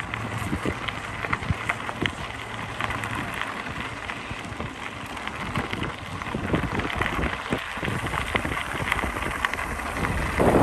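Bicycle tyres rolling over a gravel trail: a continuous crackle of crunching stones. Wind buffets the microphone near the end.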